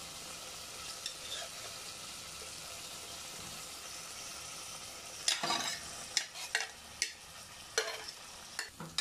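Potato and fish curry sizzling steadily in a metal pot as small fish go in. From about five seconds in, a cooking utensil scrapes and knocks against the pot several times as the fish are stirred into the gravy.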